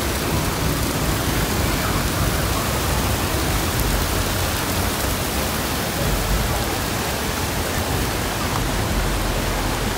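Steady rush of a fast, shallow river running over rocks and small rapids.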